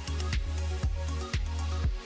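Background music with a steady electronic dance beat, a drum hit about twice a second over a heavy bass.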